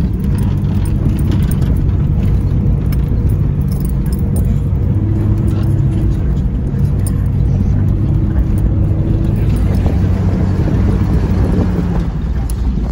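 Jeep Cherokee XJ engine running steadily as it drives a rough dirt trail, heard from inside the cab, with scattered rattles and clicks from the bouncing vehicle.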